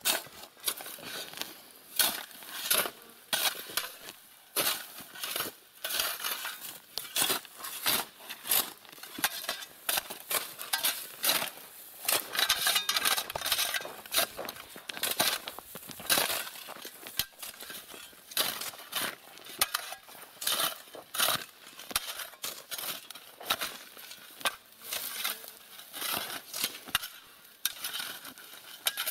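Metal shovel scraping and scooping gravel and crushed stone on a dirt road to fill potholes: repeated, irregular gritty scrapes and clinks, denser for a couple of seconds near the middle.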